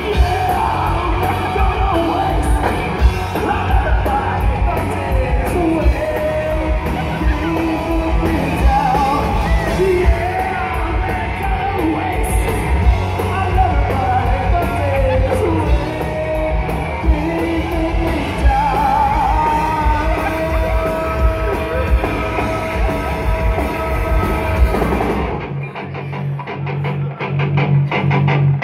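Live grunge rock band playing loud, with drums, electric guitars and a singer. About 25 seconds in, the drums and vocals drop away, leaving a held low guitar note with picked strings.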